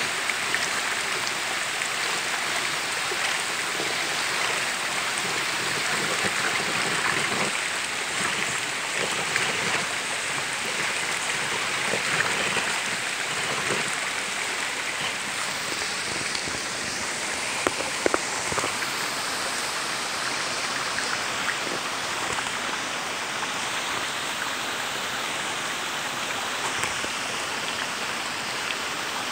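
Shallow creek water running over rocks, a steady rushing hiss, with a few sharp knocks about two-thirds of the way through.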